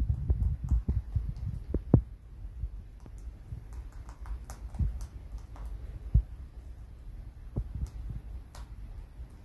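Rabbit chewing a woven vine star toy: irregular crunches and low knocks, busiest in the first two seconds, then sparser with small crackles.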